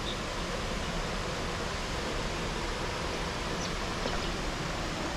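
Steady rush of a small waterfall pouring into a pool.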